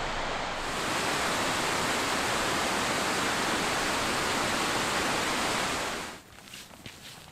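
Mountain stream rushing over rocks, a steady rush of water that gets a little louder about a second in. It drops away about six seconds in, leaving a quieter background with a few faint ticks.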